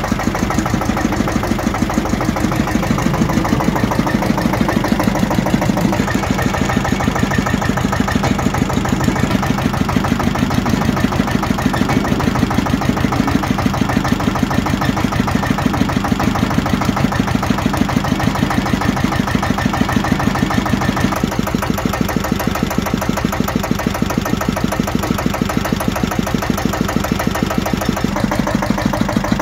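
Robson JR16 horizontal diesel stationary engine running steadily, its exhaust beats coming at an even rhythm.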